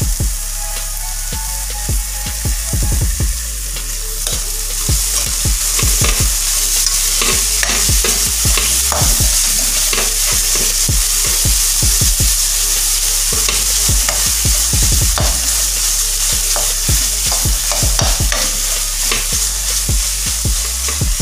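Metal spoon scraping and clinking against a metal kadai as a paneer and vegetable filling is stirred, over a steady sizzle of frying. The sizzle grows louder about four seconds in, with the spoon's clicks scattered throughout.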